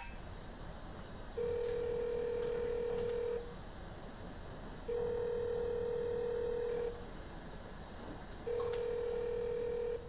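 Telephone ringback tone from a mobile phone on speaker: three long beeps at one steady pitch, each about two seconds, with gaps of about a second and a half. The call is ringing and has not yet been answered.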